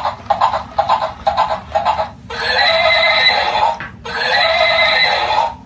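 Walking plush toy pony's electronic sounds from its small built-in speaker: quick, even clicking for about two seconds, then two long whinny-like calls, one after the other.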